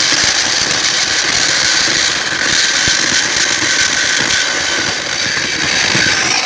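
Homemade plastic-cutting machine running: a small washing-machine motor drives a used meat-saw blade through belt and pulley, grinding into a plastic computer keyboard with a steady hiss and a rattling crackle throughout.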